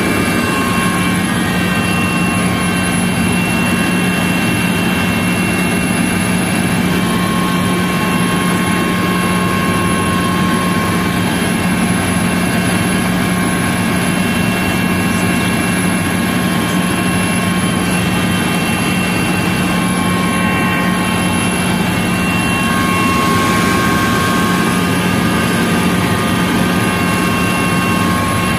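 Helicopter in flight heard from inside the cabin: a steady, loud engine-and-rotor drone with a constant low hum and faint high-pitched whines.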